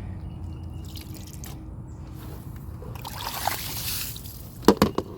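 Handling noise: a soft rustle, then a few sharp knocks near the end.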